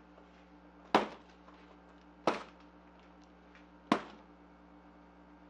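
Three cardboard shipping boxes set down one on top of another, each landing with a sharp thud, the thuds about a second and a half apart. A steady low hum runs underneath.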